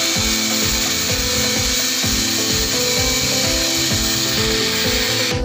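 Corded electric drill boring into a wall, a steady high grinding whine that cuts off suddenly at the end.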